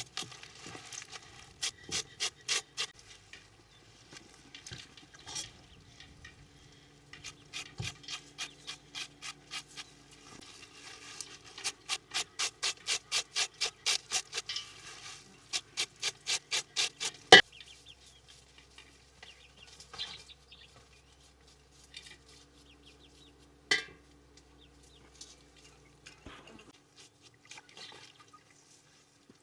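Rhythmic rubbing or scraping strokes, about four a second, in several runs of a few seconds each, followed by two sharp knocks some six seconds apart.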